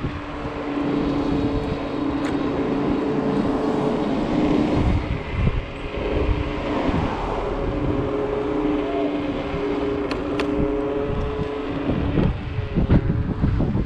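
Wind buffeting the microphone and road noise while riding an electric scooter, under a steady two-note hum, with a few sharp knocks near the end.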